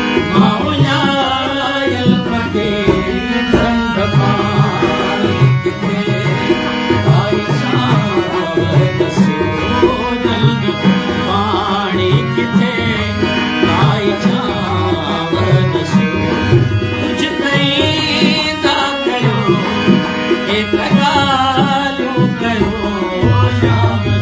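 Sindhi folk song music: tabla strokes under a wavering, ornamented melody, carrying on without a break.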